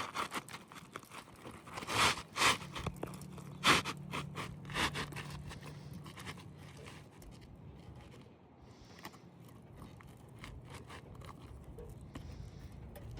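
Asphalt roof shingles scraping and crackling as a new shingle is handled and worked into place, with several sharp scrapes in the first five seconds and softer scuffing after.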